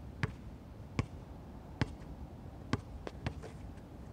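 A basketball bouncing on an outdoor hard court as it is dribbled: six sharp bounces, about one a second, the last two coming quicker.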